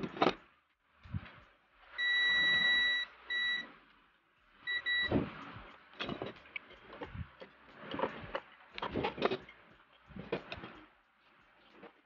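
Digital multimeter's continuity beeper sounding three times: one steady beep of about a second, then two short ones, showing a closed circuit between the test probes. Clicks and knocks of the probes and tools being handled come before and after.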